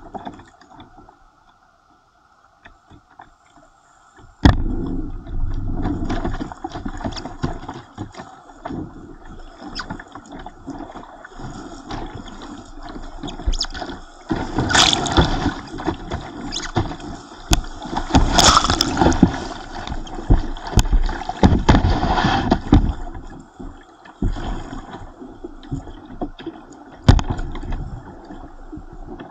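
Whitewater rushing and splashing around a kayak's bow-mounted action camera as it runs rapids, water slapping the camera with many sharp splashes. Quiet at first, the rush starts suddenly about four seconds in and is loudest around the middle.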